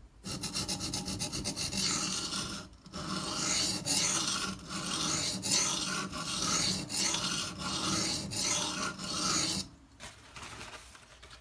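Knife blade of CTS-204P steel being ground on a coarse Shapton Pro 120-grit whetstone: rhythmic back-and-forth rasping strokes, about two a second, with a short break about three seconds in, stopping near the end. The stroking raises a burr along the edge.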